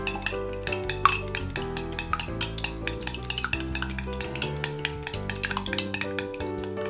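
Chopsticks beating raw eggs in a glass measuring jug: quick, irregular clicks and taps of the sticks against the glass with a wet stirring sound, over background music.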